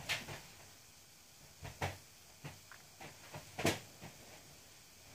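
Pencil making short strokes on paper: several brief scratches spaced unevenly, the loudest near the start and a little over three and a half seconds in.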